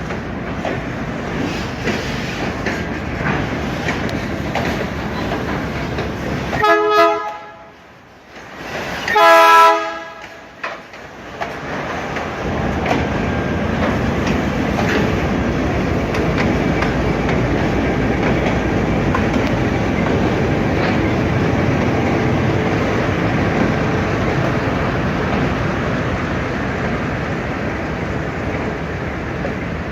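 A train rolling along the track with steady wheel and car noise. About seven seconds in, the locomotive sounds its horn in two short blasts a couple of seconds apart, the second the louder.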